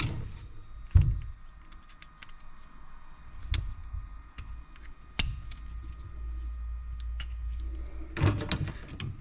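Small plastic pipe clips and fittings being handled and tried on copper pipework: scattered clicks and light knocks, a heavier knock about a second in, and a quick rattling clatter near the end.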